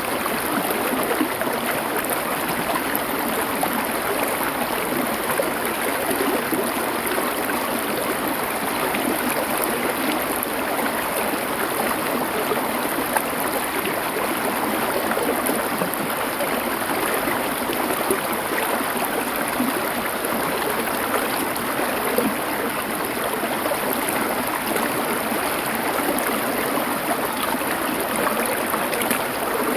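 River water flowing over stones, a steady, even rush with no break or change.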